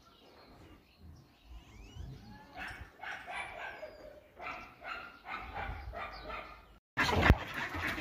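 A dog barking over and over, about two barks a second, cut off abruptly near the end.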